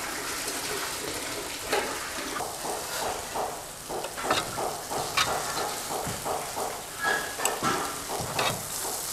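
Oil sizzling steadily in a wok as chicken-filled rice-flour kalmas deep-fry, with irregular clinks and scrapes of a metal slotted spoon lifting pieces onto a steel tray.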